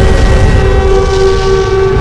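A loud, steady horn chord of several held tones over a low rumble.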